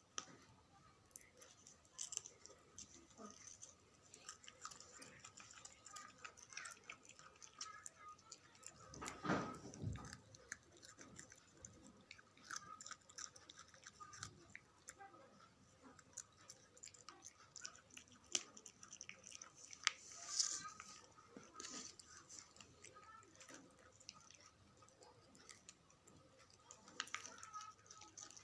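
Puppy chewing its food: many small, irregular wet clicks and crunches, with two louder bumps, one about nine to ten seconds in and one about twenty seconds in.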